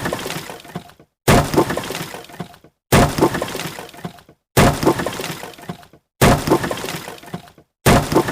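Wood smashing sound effect: a sudden crash followed by a rattling clatter of splintering pieces that dies away. The same crash repeats five times, evenly spaced about every second and a half, with a short silence between each.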